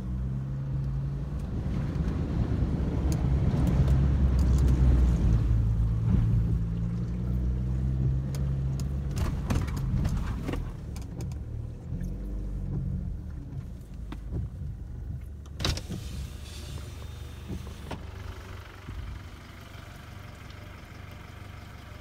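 A 4x4 vehicle's engine pulling in low-range four-wheel drive with the revs held up, heard from inside the cab; it is loudest a few seconds in and then eases off. A few sharp knocks and rattles come partway through.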